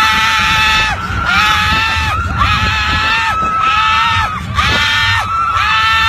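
Roller coaster riders screaming: a string of long, high, held screams about one a second, with a second voice at a higher pitch screaming alongside, over a low rumble.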